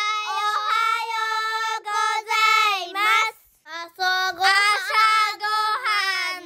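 A high-pitched, sing-song child's voice calling out in two long drawn-out phrases, with a short break between them a little past the middle.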